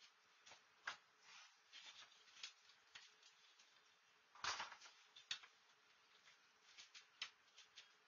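Faint scrapes and light knocks of lightweight perlite concrete being worked and packed into a wooden hive mold. A louder scrape comes about four and a half seconds in, with a sharp knock just after.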